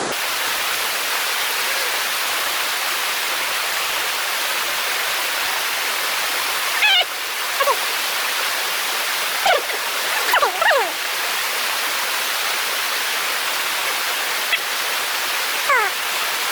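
Mountain stream water rushing steadily over rocks. Several short high calls falling in pitch cut through it a few times from about seven seconds in.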